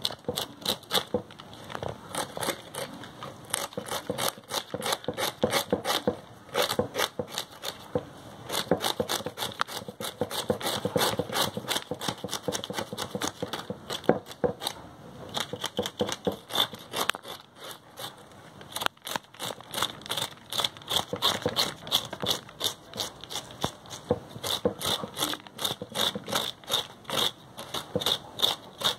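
Scales being scraped off a fresh flathead fish with a blade: rapid, repeated rasping strokes across its rough skin, several a second.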